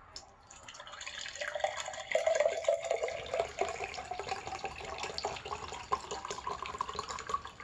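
Coconut water poured from a carton into a glass, a steady splashing stream whose pitch rises as the glass fills. The pouring stops near the end.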